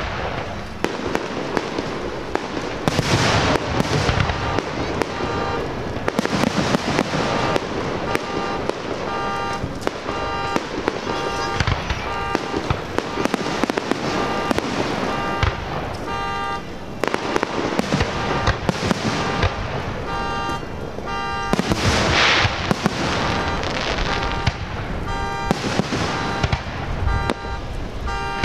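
Fireworks display: a dense run of bangs and crackling pops, with two big booming bursts, one about three seconds in and another a little past twenty seconds in.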